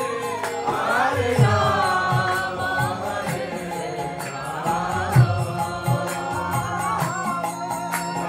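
Devotional kirtan: a group of voices chanting together to harmonium accompaniment, with a regular drum beat underneath.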